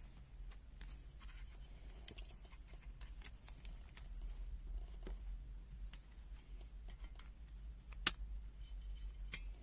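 Faint clicks and scrapes of small plastic multimeter parts being handled and fitted, with one sharp click about eight seconds in, over a low steady hum.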